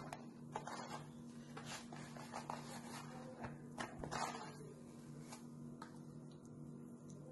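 Faint handling noises: scattered soft taps and rustles, thickest in the first four seconds or so, over a steady low hum.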